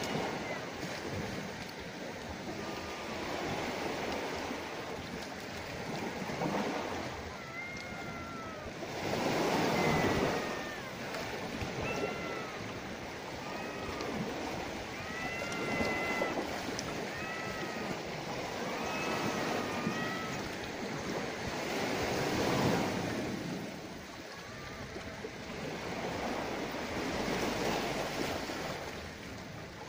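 Sea waves washing against the shore, the surf noise swelling and fading every few seconds.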